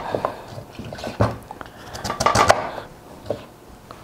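Kitchen knife cutting through peeled daikon radish and knocking on a wooden cutting board: a few uneven cuts, the loudest about a second in and again around two and a half seconds in.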